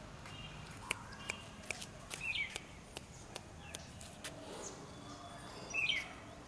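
A bird chirps twice, about three and a half seconds apart, each a short falling call, over scattered sharp clicks.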